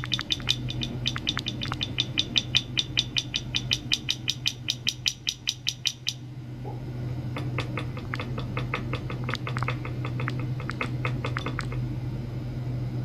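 Ultrasonic test rig running, with a glass bottle in water driven by a transducer: a steady low electrical hum under rapid, evenly spaced sharp clicks, about eight a second. The clicks stop abruptly about six seconds in, then return sparser and irregular for a few seconds.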